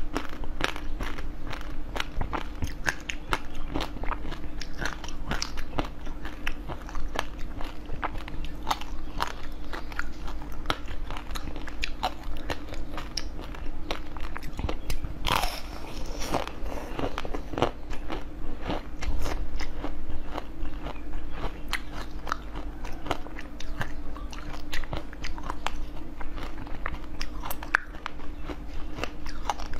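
Close-miked biting and chewing of a hard-shelled ice cream bar covered in sprinkles: dense crackling crunches as the shell breaks, with one louder crunch about halfway through. A steady low hum runs underneath.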